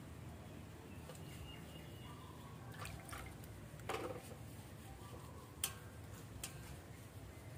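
Faint water dripping and splashing in a basin as a wet puppy is washed by hand, with a few short sharp clicks, the loudest about three-quarters of the way through.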